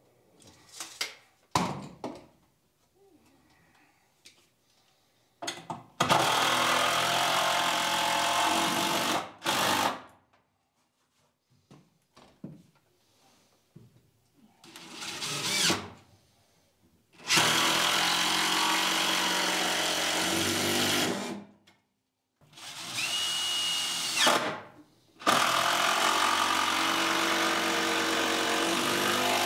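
Cordless drill running in about six bursts of one to four seconds each, driving fasteners into a wooden workbench, with a few short knocks before the first burst.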